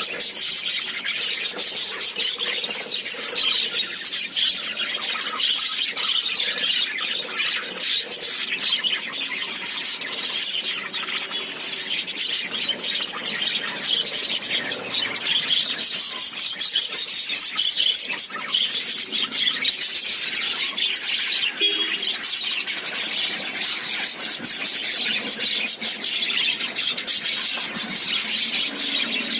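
A flock of lovebirds chattering and squealing nonstop, a dense mass of overlapping high-pitched calls.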